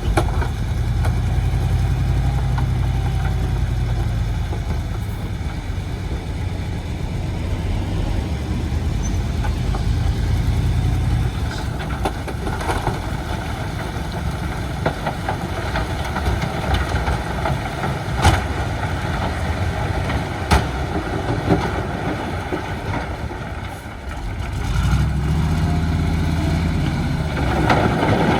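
Heavy diesel construction machinery running steadily, with a few sharp metallic clanks. The engine note dips briefly and then rises again near the end.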